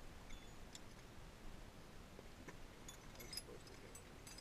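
Faint, scattered metallic clicks and clinks of small wrenches from a cheap on-bike tool kit being handled and slid back into their pouch.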